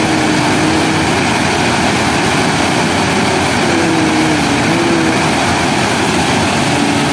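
Floodwater spilling over a small dam's overflowing spillway, a loud steady rush of falling and churning water.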